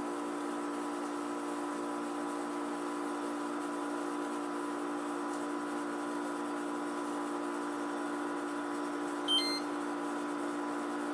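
Samsung AW05B5171TWA window air conditioner (2022 model) running with a steady mechanical hum made of several fixed tones. The owner calls this machine noise loud and not at all the quiet running it is sold on. A single short electronic beep sounds about nine seconds in.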